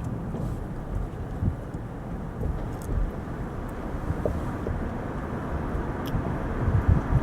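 Car driving slowly: steady road and engine rumble.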